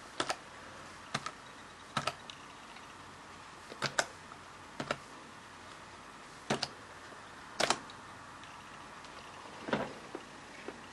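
Single keys pressed one at a time on a ThinkPad laptop keyboard, each a sharp click, with uneven gaps of about a second: the hard-drive password being typed in at the boot-time password prompt.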